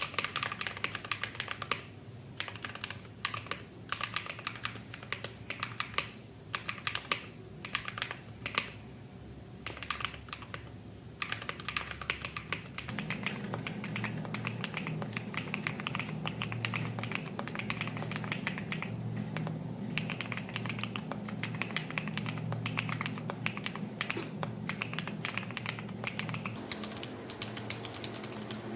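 Typing on a mechanical keyboard: a quick, uneven run of key clicks and thocks. From about halfway in the keystrokes are denser and sit over a steady low hum.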